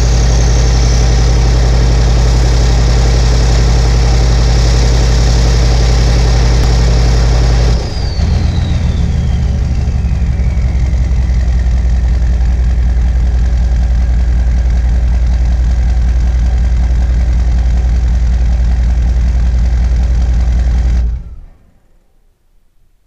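1996 Chevy K1500's 6.5 L turbo diesel running at a steady high idle with a high turbo whistle. About 8 seconds in it drops back to a normal idle, and the whistle slides down in pitch as the turbo spools down. The engine then stops near the end.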